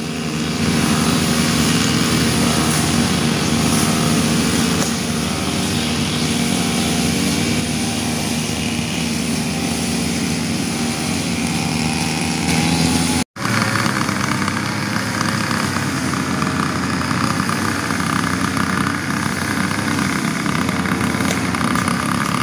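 Several brush cutters running steadily together as they cut grass, in a constant high engine drone. The sound drops out for an instant about halfway through.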